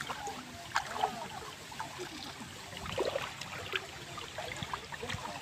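Shallow running river water trickling, with a few short splashes about a second in and again about three seconds in.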